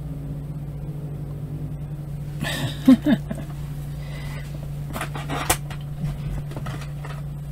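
Steady low electrical hum, with a short rustle of handling about two and a half seconds in and a couple of sharp clicks around five seconds in as figures and packaging are moved around a cardboard box.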